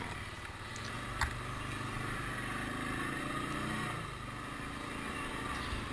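CFMoto CF500 ATV engine running while riding along a forest track, its pitch rising a little and then easing back about four seconds in. There is a single short knock about a second in.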